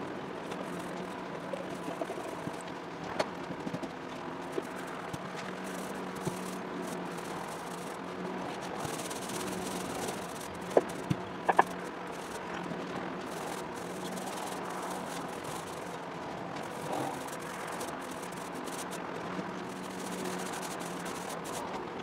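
Mini paint roller rolling primer onto a boat floor: faint rustling over a steady low hum, with a few sharp clicks around the middle.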